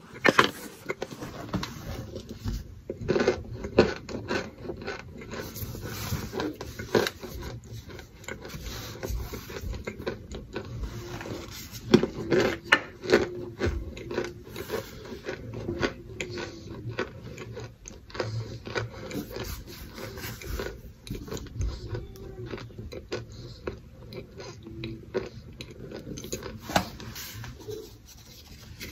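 Close-up crunching and chewing of cornstarch chunks, with a plastic scoop scraping and scooping through the powdery lumps in the bowl. Irregular crisp crunches and scrapes, with the loudest bites a few seconds in and about twelve seconds in.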